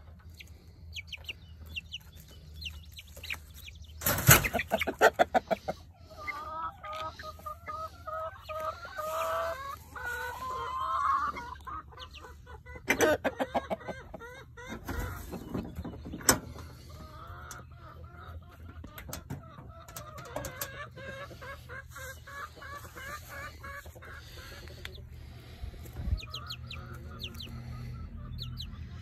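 Month-old chicks and ducklings in a wire pen calling repeatedly, with runs of short clucking calls and some thin high peeps. Twice there is a loud burst of rapid clattering, about four seconds in and again about halfway.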